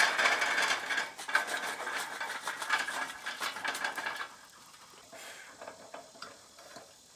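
Lit charcoal briquettes tumbling and clattering out of a metal chimney starter into the grill's firebox, dying away about four seconds in. A few faint clinks follow as the wire cooking grate is set on.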